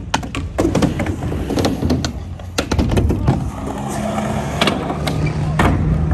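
Skateboards rolling and clacking around skatepark ramps: a rumble of urethane wheels under many sharp knocks from trucks and boards hitting coping and deck. A steady low hum comes in about five seconds in.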